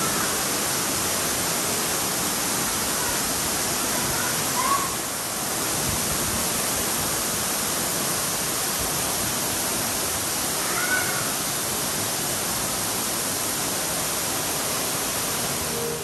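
Steady rush of a tall waterfall, with a few short bird calls over it that rise and fall in pitch.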